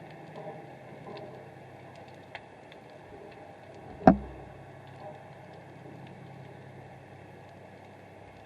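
Underwater sound picked up by a submerged camera: a steady low hum with a few faint clicks, and one sharp knock about four seconds in.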